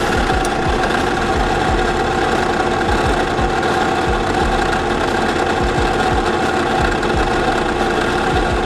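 WEN variable speed drill press running steadily with no load, spinning a chucked drill bit: an even motor whine and hum that holds one pitch throughout.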